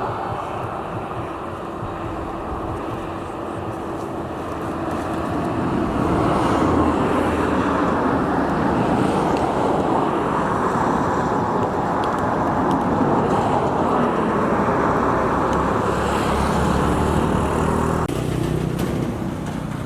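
Steady road-vehicle noise, louder from about six seconds in and dropping off shortly before the end.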